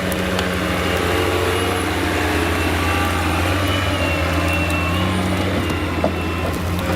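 Heavy forestry machine's engine running steadily under load, a deep even hum with a faint wavering whine above it.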